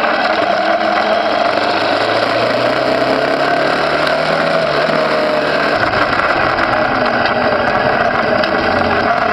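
Small motorcycle engine running under way, over steady road and wind noise; its note rises slowly in pitch in the first half, and a low rumble comes in about six seconds in.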